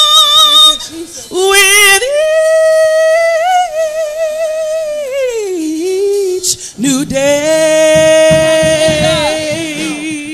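Gospel choir singing a slow praise song. One voice stands out, holding long, wavering notes and sliding down about five seconds in, and lower voices join in harmony about seven seconds in.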